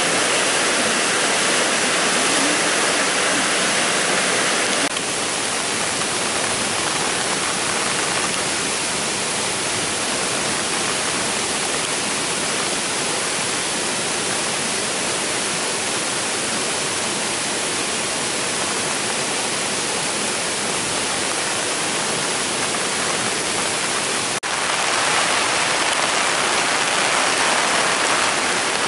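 Loud, steady rushing of a river in flood after heavy rain, a muddy torrent. About five seconds in, the sound cuts to a softer steady rush, and near the end it turns louder and harsher again.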